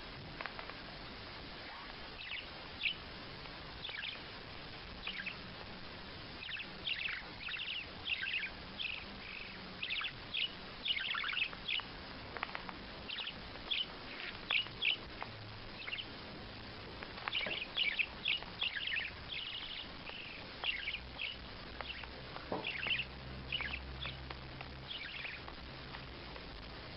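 A small bird chirping: many short, high chirps, each a quick downward note, coming singly and in quick runs of several, over a steady hiss.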